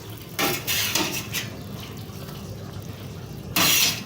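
Metal spoon scraping and knocking against a cooking pot as chopped molokhia is put into the boiling soup: a few short scrapes in the first second and a half, and a louder half-second scrape near the end.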